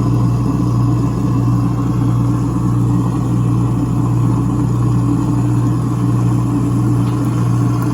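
Garbage disposal motor running steadily with a Glisten cleaner packet inside and hot water trickling in, a loud even hum.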